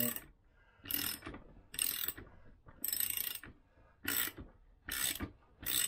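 Socket ratchet clicking in six short bursts, about one a second, as it tightens the nut that draws a scooter crankshaft into its crankcase. The crank is coming in easily, with little weight on the handle.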